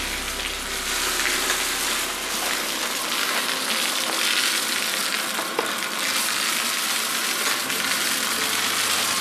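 Robot vacuums running over a floor strewn with dry rice and confetti, their brushes and suction picking up the grains in a steady crackling hiss.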